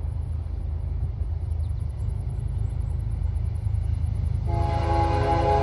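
Low rumble of the approaching NS 178 freight train, led by an ES40DC diesel locomotive, growing slowly louder. About four and a half seconds in, the locomotive's air horn starts sounding a steady multi-note chord.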